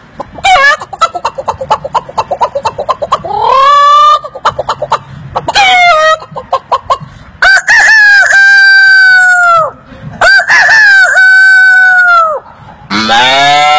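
A man imitating a chicken with his mouth: a run of quick clucks, then short rising calls and two long, drawn-out rooster crows. Near the end a different, lower animal call begins.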